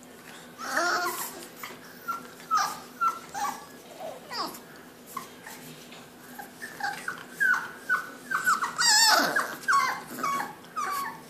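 English bulldog puppies, six weeks old, whimpering and yipping in many short, high cries that mostly fall in pitch, coming thicker in the second half, with one louder, longer sound about nine seconds in.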